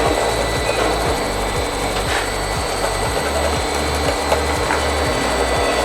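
Inverter air conditioner compressor and outdoor fan motor running, just started by a repaired Haier inverter control board, with a steady hum and faint thin high-pitched whine tones.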